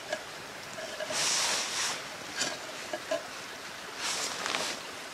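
A steel canteen cup is handled and set down on a small camp stove's metal windscreen, with a few light metal clicks. Two louder rustling bursts come about a second in and near the end.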